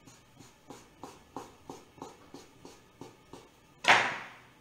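A kitchen knife chopping a rope of spelt-flour dough into small gnocchi on a wooden board: about ten short taps, roughly three a second. Near the end comes one louder, longer noise that fades over about half a second.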